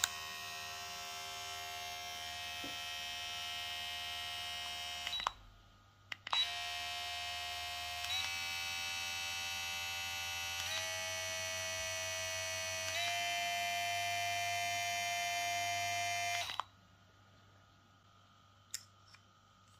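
VGR V682 cordless hair clipper running steadily, switched off about five seconds in and switched on again with a click a second later. Its speed is changed in steps about three times, each step shifting the pitch, before it is switched off about three-quarters of the way through; a faint click follows near the end.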